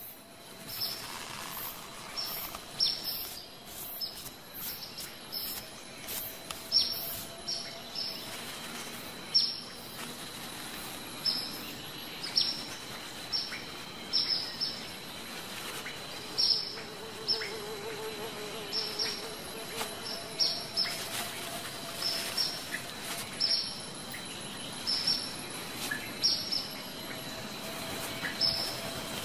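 Hummingbirds chipping: many short, high chirps, each dropping quickly in pitch, repeated irregularly about once or twice a second, over a steady thin high insect-like whine.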